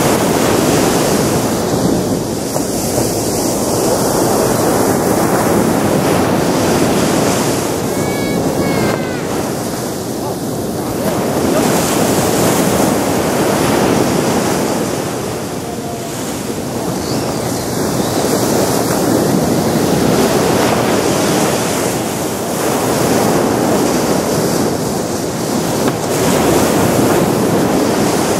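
Ocean waves breaking on a sandy beach. The wash of the surf swells and eases every several seconds.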